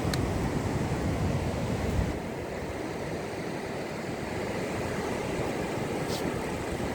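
Wind rumbling on the microphone over the wash of the surf; the rumble eases about two seconds in. A brief high squeak sounds at the start and another near the end.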